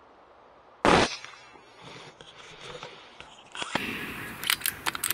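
A single sharp report about a second in from a .25 FAC-rated Brocock Sniper pre-charged pneumatic air rifle firing a pellet at a fox. Near the end come a few quick metallic clicks as the rifle's action is cycled to chamber another pellet.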